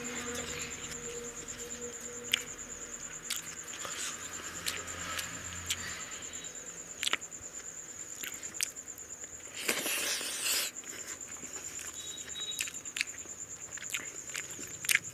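Close eating sounds: fingers mixing rice and curry on a tray, with scattered clicks and mouth smacks while chewing. A steady high-pitched insect trill runs underneath, and a louder rustling burst lasts about a second, some ten seconds in.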